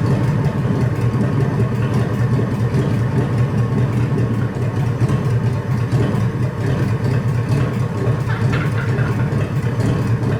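Chevrolet 283 small-block V8 idling steadily on its first run after sitting for a long time, with its idle just turned down.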